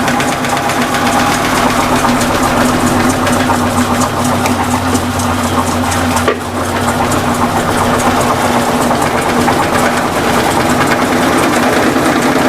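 Electrolux LT15F washing machine on its spin cycle, running with a steady hum and a fast, loud rattling vibration, which the owner puts down to the rear suspension rod rocking in a worn support. One sharp knock about six seconds in.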